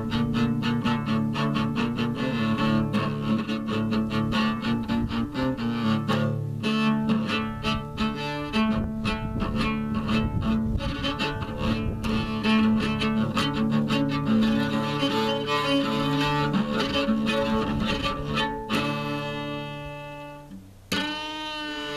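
Cello playing quick repeated notes over steady low held notes, then slower, longer notes near the end, with a sliding note about a second before the end.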